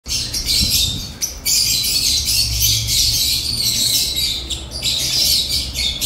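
A flock of lovebirds, Fischer's lovebirds among them, chattering with dense high-pitched chirps almost without a break, over a faint low hum.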